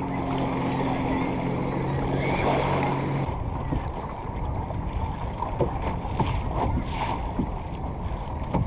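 Wind on the microphone and water slapping against the hull of a small boat under way on a choppy lake. For the first three seconds a steady low multi-tone hum sounds over it, then cuts off suddenly.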